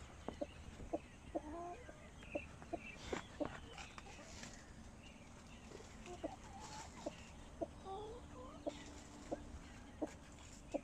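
Sanhuang hens clucking now and then, short low calls scattered among brief sharp clicks.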